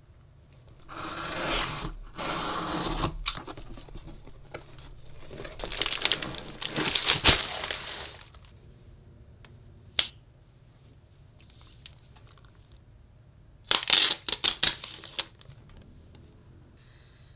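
Unboxing handling sounds: a small box cutter slitting packing tape on a cardboard box in two scraping strokes, then crinkling bubble wrap and plastic packaging. A single sharp click about ten seconds in, and a quick run of sharp clicks and taps near the end.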